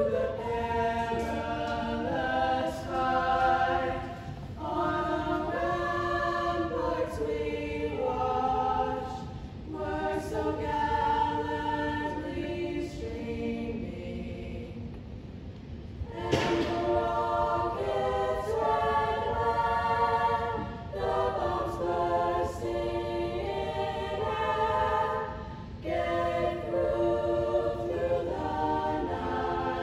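High school choir singing a cappella under a conductor, in sustained phrases with short breaks between them; the singing grows soft for a few seconds in the middle, then comes back in full.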